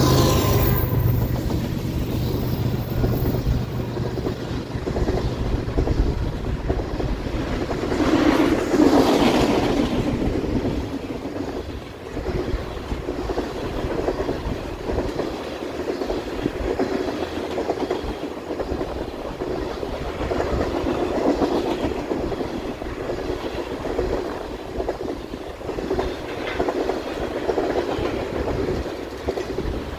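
Freight train of tank cars rolling steadily past, steel wheels rumbling and clicking on the rails in a continuous clickety-clack, swelling a little louder about eight seconds in.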